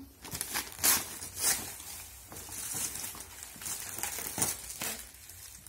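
Wrapping paper and tissue paper rustling and crinkling as gifts are unwrapped by hand, with a few sharper crackles.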